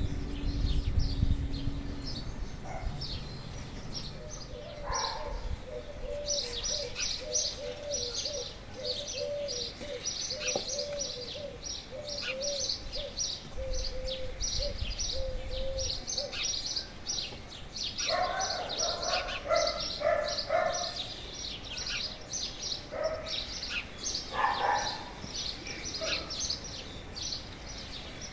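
Small birds chirping in quick, high-pitched notes that keep up almost without pause, over a lower call repeating through the first half. A few louder, lower calls come about two-thirds of the way through.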